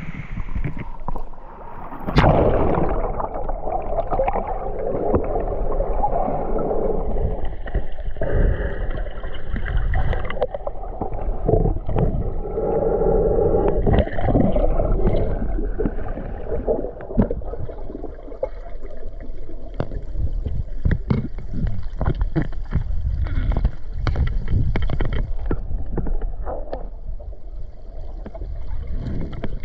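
A splash as the diver goes into the water about two seconds in. Then the muffled sound of being underwater, picked up through the GoPro's housing: water rushing and gurgling, with scattered clicks and knocks in the second half.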